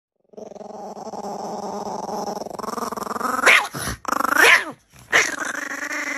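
Chihuahua puppy growling steadily, breaking into three short high yips in the second half.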